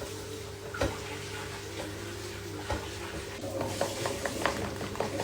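Spiced pakora batter being stirred in a bowl: wet mixing sounds with scattered small utensil clicks that grow busier after about three and a half seconds, over a steady low hum.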